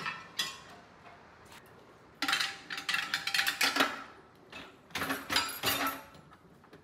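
The grill's removable parts clattering against a dishwasher's wire rack as they are loaded, in several bunches of knocks and rattles. Near the end the rack rattles as it rolls in.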